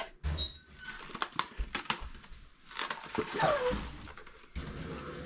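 Plastic cling wrap pulled from its box and crinkled over a stainless steel bowl of bread dough, with scattered rustles and clicks and a short falling squeak about three and a half seconds in.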